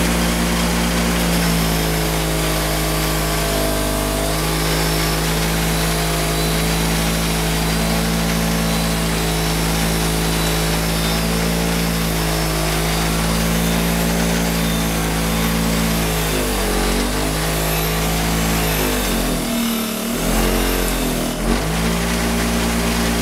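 Bench grinder running with a wire wheel scratching the chrome off a steel motorcycle handlebar: a steady motor hum under a scratchy hiss, roughening the chrome so paint will stick. The motor's pitch sags and recovers a few times as the bar is pressed harder into the wheel, most clearly about two-thirds of the way through and again a little later.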